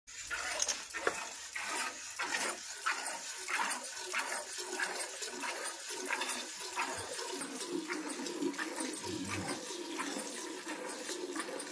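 Cow being milked by hand: rhythmic squirts of milk hitting a steel bucket, about two a second. From about seven seconds in the squirts grow fainter over a steady low hum.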